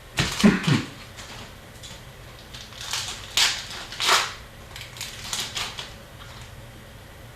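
Hockey card packs and cards being handled: a handful of short rustles and crinkles of foil pack wrappers and cards, one cluster near the start and several more in the middle.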